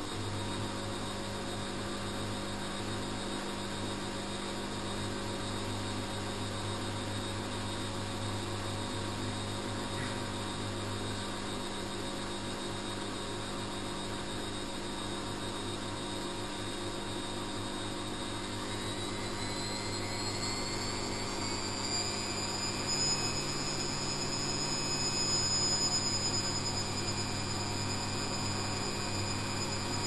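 Front-loading washing machine running a wash with water in the drum: a steady motor hum, with a whine that shifts in pitch about two-thirds of the way through.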